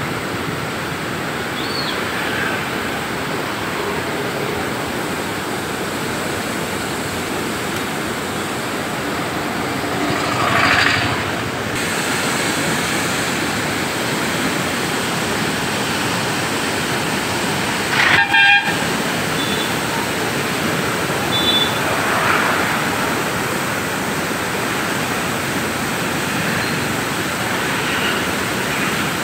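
Steady rush of churning floodwater pouring through a river barrage. A vehicle horn honks briefly about two-thirds of the way through.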